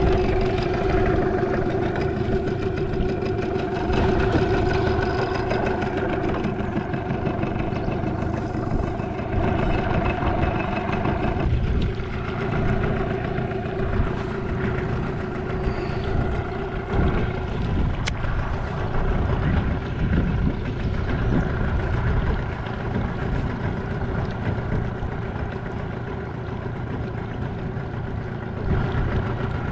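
Small outboard motor running at low speed on an aluminum boat. A steady hum whose pitch shifts a little a few times.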